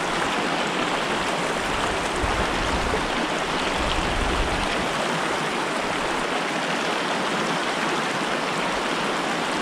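Shallow mountain stream running over rocks and cobbles, a steady rushing of water from the riffle close by.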